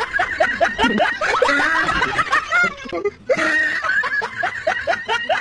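Human laughter: a rapid run of short pulses, several a second, in two bouts with a brief break a little after three seconds in.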